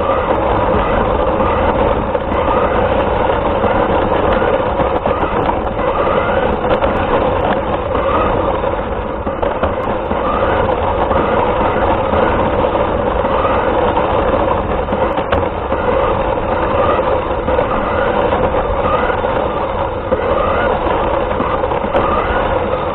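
RC car's motor and drivetrain running steadily as it drives, a constant whine over a low rumble from the wheels on the ground, heard close up from on board.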